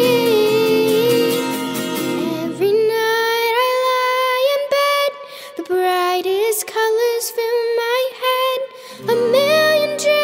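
A girl singing a pop ballad over a backing track. The low accompaniment drops away about two and a half seconds in and returns near the end.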